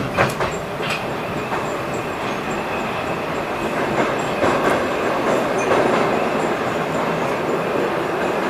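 Metrowagonmash 81-775 "Moscow-2024" metro train running, heard from inside the car: a steady rumble and hiss of wheels on rail, with a few sharp clicks in the first second.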